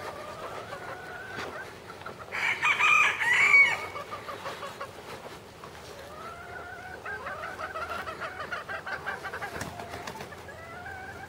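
Chickens calling, with a rooster crowing loudly once about two seconds in; hens keep up a run of repeated clucking calls through the second half.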